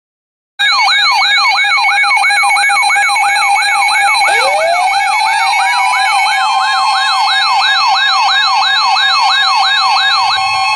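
Electronic siren-style alert tone: a rising whoop repeats about three times a second over a steady tone, and about four seconds in a second tone glides upward and then holds.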